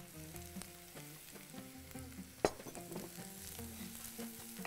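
Garlic sautéing in a pot, seasoned with salt and black pepper, sizzling faintly while a wooden spoon stirs it. One sharp knock about two and a half seconds in.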